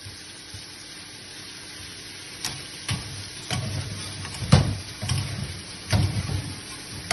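Minced mutton sizzling in ghee and melting butter in a karahi. From about two and a half seconds in, a metal spatula scrapes and knocks against the pan several times as it is stirred.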